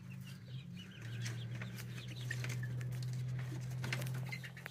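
Young chickens peeping and chirping softly in short, scattered calls, over a steady low hum.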